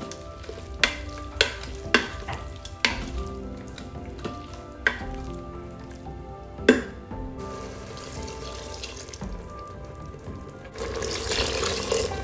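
Spatula stirring and scraping a vegetable and paste mixture in a stainless steel Instant Pot inner pot, with about six sharp knocks of the spatula against the pot in the first seven seconds. Near the end, water is poured into the pot from a measuring cup with a loud rushing splash.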